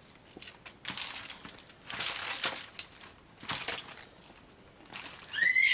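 Gloved hands pulling apart smoked pork butt: a few bursts of crinkling and tearing. A short high-pitched squeal comes in near the end.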